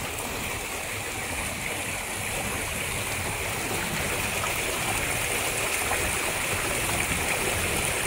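Rocky jungle river flowing steadily over boulders: a constant rushing of water.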